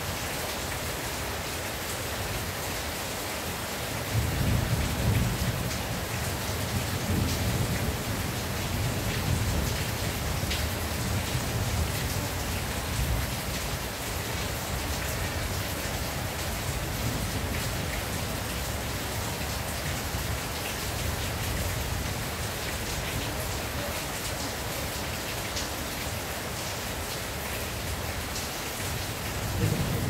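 Steady rain falling on a tin roof. Thunder rumbles in suddenly about four seconds in and rolls away over some ten seconds. Another rumble starts near the end.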